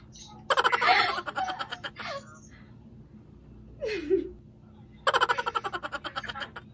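A woman laughing hard in two bouts of rapid, pulsing giggles, the first about half a second in and the second about five seconds in, with a short sliding vocal sound between them.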